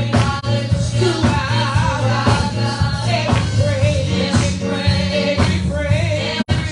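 Gospel praise-and-worship music: a band with a steady beat under sung melody lines. The sound drops out for an instant near the end.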